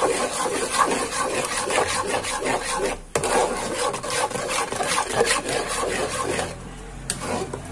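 A spoon scraping and rasping round a pot while it stirs thick, sticky tamarind paste. The paste is being cooked down with sugar until it thickens to a syrup stage. The scraping breaks off briefly about three seconds in and grows quieter near the end.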